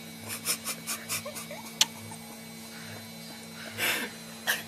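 A baby fussing at the sour taste of lemon: short, breathy whimpers and mouth noises, a sharp click a little under two seconds in, and a longer cry falling in pitch near the end, over a steady electrical hum.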